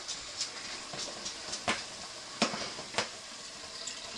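Browned beef hissing and sizzling in a hot stainless pot as it is tipped in from a plastic container, with a few sharp knocks and clinks against the pot, about three of them in the second half.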